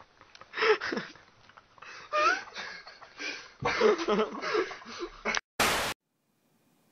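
People laughing and calling out in irregular bursts, then a brief loud hiss of noise about five and a half seconds in that cuts off sharply.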